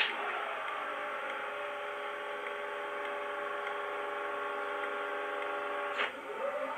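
Simulated Paxman VP185 diesel engine idling steadily, played by a DCC sound decoder through a model HST power car's speaker. There is a sharp click right at the start and another about six seconds in. A rising tone follows the second click near the end, as the next power car's start-up begins.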